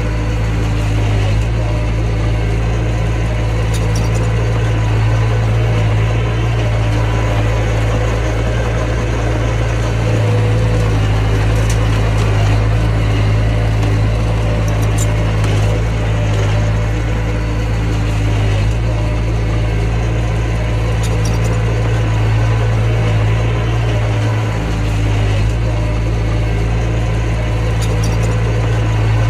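Mini bulldozer's engine running at a steady speed, with a deep, even hum and a few faint clicks.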